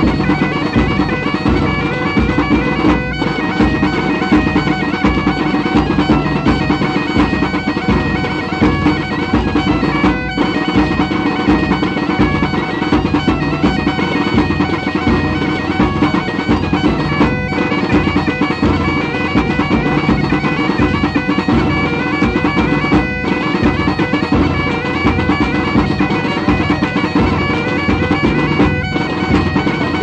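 Galician bagpipe (gaita) playing a folk dance tune over its steady drone, cutting out for an instant every six or seven seconds.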